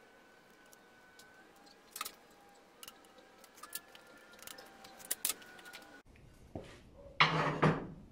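Scattered metallic clicks and clinks of a socket wrench and loosened bearing-cap bolts on a differential housing, as the crown wheel carrier is freed. Near the end comes a louder rustling scrape lasting about half a second.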